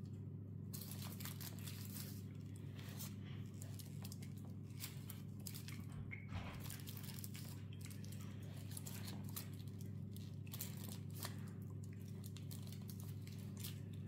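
Faint crinkling of aluminium foil and soft handling noises as a strip of dough is wound in a spiral around a foil-wrapped form, over a steady low hum.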